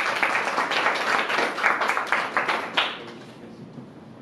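A small audience applauding, with dense hand claps that die away about three seconds in.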